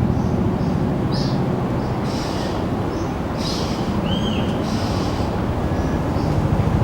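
Helicopter flying overhead, its rotor beat a steady, fast low pulsing. Over it come a few short high-pitched bird calls, one a brief rising-and-falling note about four seconds in.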